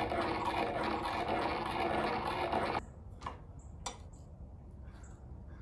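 Bench grinder spinning down after being switched off, a steady whir falling slowly in pitch, which stops about three seconds in. A couple of light clicks follow.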